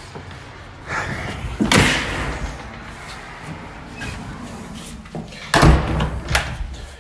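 A metal mesh security storm door and a house door being opened and banging shut, with two loud bangs, about two seconds in and again near the end, and lighter knocks and rattles between.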